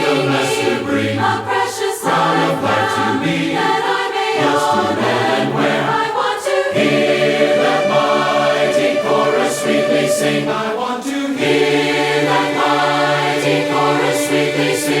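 A cappella choir of mixed voices singing a hymn in harmony, with low men's parts under the higher parts.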